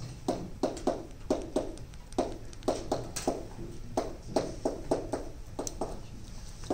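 Writing on a classroom board: an irregular string of sharp taps, about two to three a second, as the working is written out.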